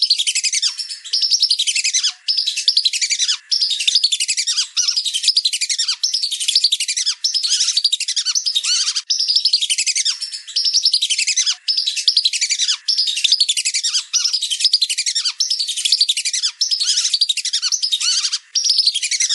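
A flock of whistling ducks calling: many shrill, descending whistled notes overlapping, in bursts of about a second separated by short breaks.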